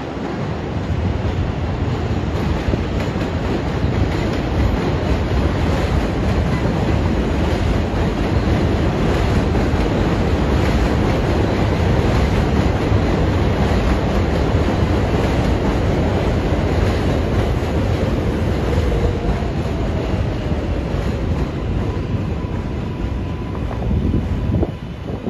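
Train in motion: a steady loud rumble and rattle of wheels on rails.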